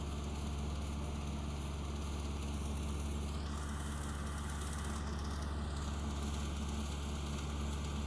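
Small rice combine harvester running steadily while cutting standing rice, heard from across the paddy as an even low engine drone and hum.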